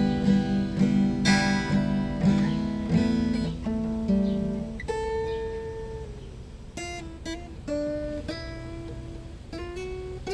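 Acoustic guitar strumming chords for about five seconds, then switching to single picked notes that ring out more quietly as the song winds down.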